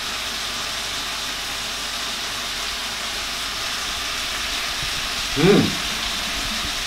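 A man's short rising hum of enjoyment, a closed-mouth "mmm" while chewing a mouthful of steamed fish, about five and a half seconds in, over a steady hiss.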